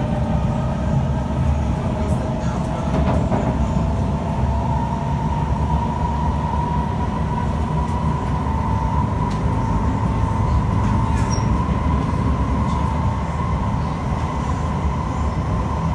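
Interior running noise of a Kawasaki C151 metro train at speed: a steady rumble of wheels on rail with a high whine that rises slightly in pitch over the first few seconds, then holds steady.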